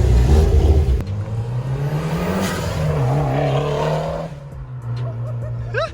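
Mitsubishi Lancer Evolution X's big-turbo four-cylinder with a muffler-delete exhaust, loud and low for the first second, then revving up and back down. The engine holds a steady note before fading after about four seconds.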